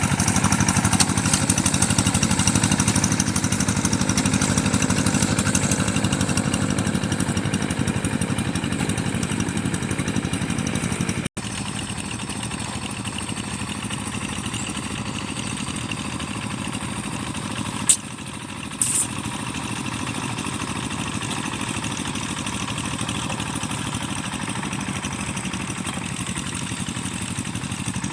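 Paddy-field tractor engine running steadily while it ploughs and levels the field. About eleven seconds in the sound breaks off for an instant and carries on quieter, and later a single sharp click and a short burst stand out over the engine.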